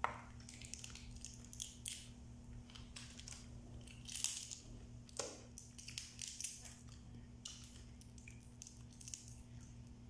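Shells of boiled blue swimmer crabs being cracked and pulled apart by hand: a scatter of short sharp cracks and crunches, the loudest right at the start and again about four and five seconds in. A steady low electrical hum runs underneath.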